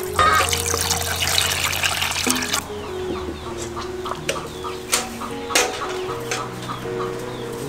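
Water poured from a metal bowl splashing onto the ground for about two and a half seconds. Then come scattered clinks of metal bowls dipped into a clay water jar and a pot, over soft background music.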